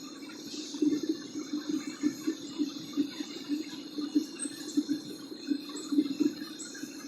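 Home-made aluminum melting furnace running during a melt: a steady hiss with an uneven low rumble pulsing several times a second and a faint crackle.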